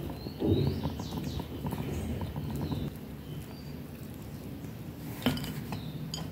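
Table knife scraping and spreading jam across the crust of a split bread roll, with small clinks of cutlery, a knock about half a second in and a sharp click about five seconds in.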